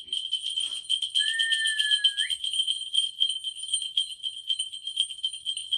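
Korean shaman's bell rattle (a cluster of small bells on a handle) shaken rapidly and steadily, giving a fast, continuous jingling. A brief, faint high tone sounds about a second in.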